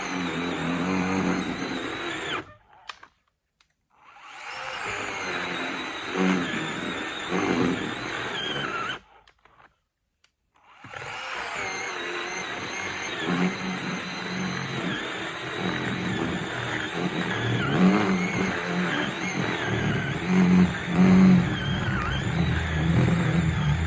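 Achiforce 20-volt cordless chainsaw running and cutting through a log, its electric motor's pitch wavering as the chain bogs and frees in the wood. The sound cuts off abruptly twice, about 2.5 and 9 seconds in, for a second or two each time.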